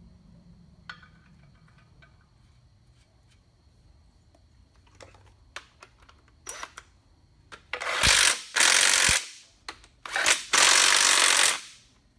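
A handheld power tool with a socket runs twice in bursts of about a second and a half, spinning nuts onto the studs that hold the bell housing, after a few light metallic clicks of the socket and parts being handled.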